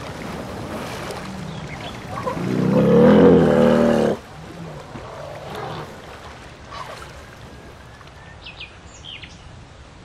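An elephant gives a loud, low, pitched call lasting about two seconds, starting a couple of seconds in and cutting off abruptly. A few short, high bird chirps come near the end.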